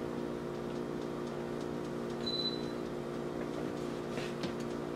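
A steady low machine hum, like a running kitchen appliance, with a brief faint high tone about two seconds in and a few soft clicks near the end.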